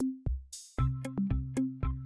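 Background electronic music with a steady drum-machine beat and bass; about half a second in a short hissing sweep leads into a fuller part with synth notes added.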